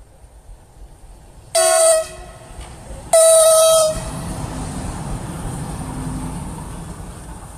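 ЭП2К electric locomotive sounding its horn twice, a short blast and then a longer one about a second and a half later. Its wheels then rumble on the rails as it passes close by, fading away.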